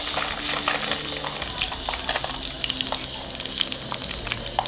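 Masala-coated fish frying in hot oil: a steady sizzle full of small crackles and pops.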